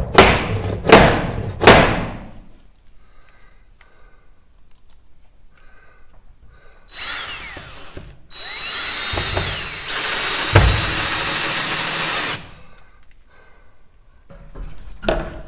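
Three hammer taps on a grooved wooden block, seating a tongue-and-groove ceiling board against the one below. A few seconds later a cordless drill runs on a screw in the block, in a short burst and then a longer run of about four seconds.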